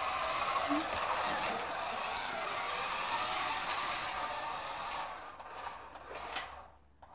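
Toy remote-control car's small electric motor and gears whirring as it drives, with a thin high whine. It runs steadily for about five seconds, then in short spurts with a click, and stops just before the end.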